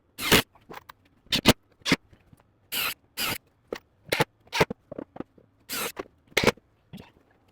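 Screws being driven into wood, heard as a string of short, irregular bursts, about two a second, with brief pauses between.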